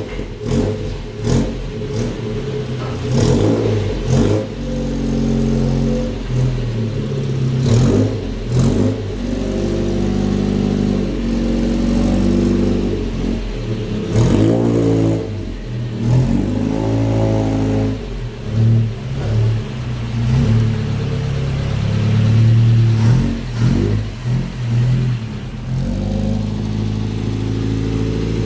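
Engine of a 1951 Chevrolet rat-rod pickup running and being revved, its pitch rising and falling several times over a steady low drone, as the truck reverses slowly.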